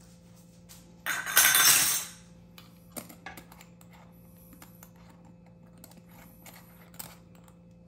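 About a second of dry, rattling hiss as salt is poured out of a container, followed by a few light clicks of kitchen utensils.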